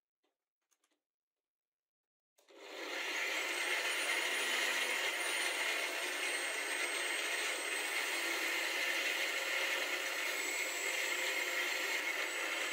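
Bench grinder fitted with a sanding disc switched on about two seconds in, its high whine rising as the motor spins up, then running steadily while a drill bit's tip is ground against the disc to sharpen it. A few faint clicks of handling come before it starts.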